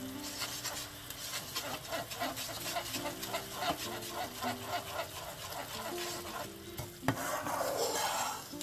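A metal spoon stirring and scraping thick caramel filling of butter, brown sugar and sweetened condensed milk around a nonstick frying pan, with the mixture sizzling as it cooks. The strokes come about three or four a second, and a sharp click about seven seconds in is followed by a denser sizzle.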